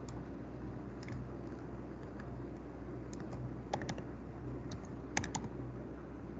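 Sparse computer-keyboard keystrokes, a few clicks at a time with a small cluster about five seconds in, over a faint steady hum.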